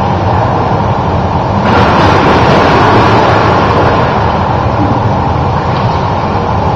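Steady rushing noise of an indoor pool hall, with the splashing of a swimmer kicking on a kickboard, which grows louder and brighter about two seconds in as the kicks come close.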